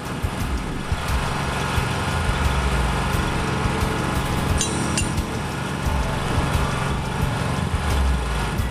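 Engine of track-laying machinery running steadily, with scattered clicks and two sharp metallic clinks about halfway through.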